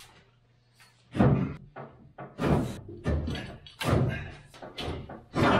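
Irregular clunks and thumps of a steel tube bumper being worked loose and pulled off a pickup's rear frame, metal knocking against metal several times after a quiet first second.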